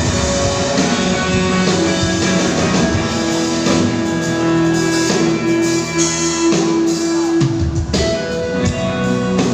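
Live rock band playing an instrumental passage: electric guitar over drums and bass through a loud PA, heard from within the crowd. A long held note runs through the middle.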